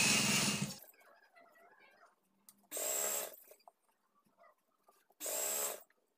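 Industrial sewing machine running as it stitches fabric, stopping under a second in, then two short half-second bursts of stitching about three and five and a half seconds in.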